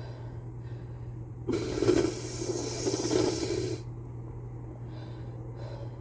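A person with a cold lets out one long, hissing breath lasting about two seconds, starting about a second and a half in.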